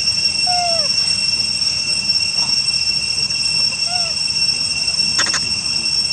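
Steady high-pitched insect drone, with two short falling squeaks about half a second and four seconds in, and a brief burst of clicks about five seconds in.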